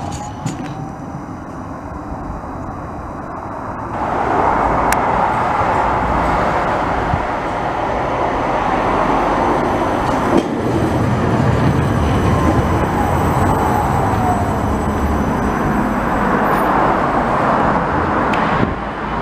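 Low-floor electric trams running on the rails at a stop: a steady rumble of wheels and running gear that gets louder suddenly about four seconds in, with a faint falling electric whine midway as a tram slows to a halt.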